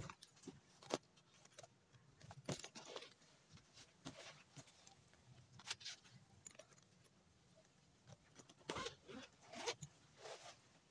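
Faint, scattered rustles and soft taps of hands handling a zippered fabric drone carrying case, a little more frequent near the end.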